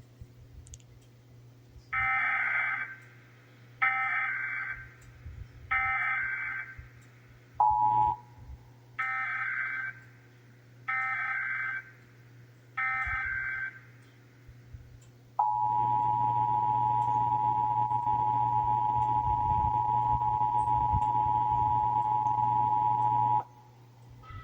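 Emergency Alert System alert header and attention signal. First come six short, warbling SAME data bursts about two seconds apart, with a brief single tone between the third and fourth. Then the steady two-tone attention signal holds for about eight seconds, marking the start of the Required Monthly Test alert.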